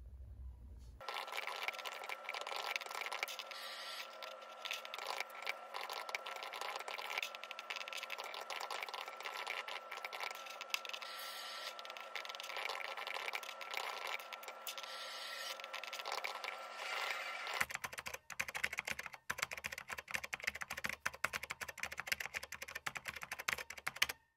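Typing on a laptop keyboard: a quick, uneven run of light key clicks, with a faint steady hum under it until a change about eighteen seconds in.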